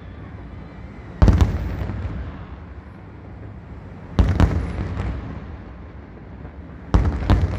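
Aerial firework shells bursting: three clusters of loud booming reports about three seconds apart, each fading out in a long echo.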